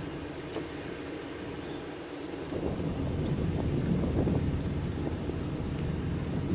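Wind buffeting the microphone: an uneven low rumble that swells about two and a half seconds in.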